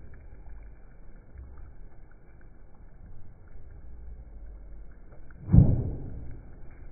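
Low rumbling background with one heavy thump about five and a half seconds in, dying away over half a second.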